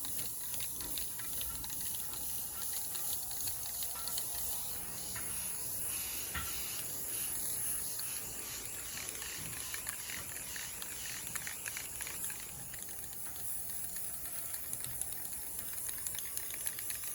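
Aerosol spray paint can hissing as paint is sprayed onto a panel. A steady high-pitched hum runs behind it.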